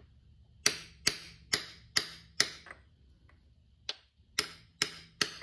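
Small hammer tapping a socket, metal on metal, to drive a new countershaft seal into a dirt bike engine case: five quick taps about half a second apart, a pause with one lighter tap, then three more taps.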